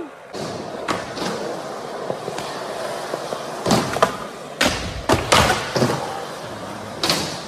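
Skateboard wheels rolling on smooth concrete, broken by several sharp clacks and knocks of the board hitting the ground and a ramp edge.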